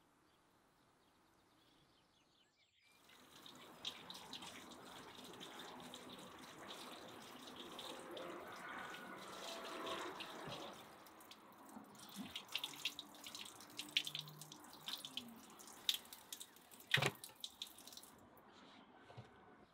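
Near silence for the first few seconds, then water running from an outdoor wall fountain's tap as a large piece of raw beef is rinsed under it. This turns into irregular splashes and wet handling of the meat, with one sharp knock near the end.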